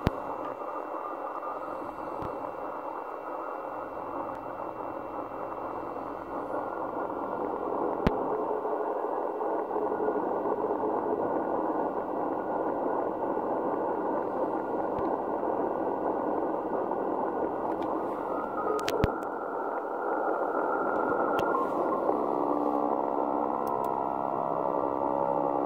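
Icom IC-7600 receiving 40 m band noise in CW mode: steady shortwave static heard through its narrow 1.2 kHz CW filter. There are a couple of sharp clicks, and several steady tones come in near the end.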